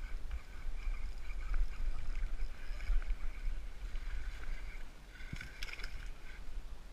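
A hooked bass thrashing and splashing at the water's surface as it is reeled in on a fishing rod, over a steady low rumble.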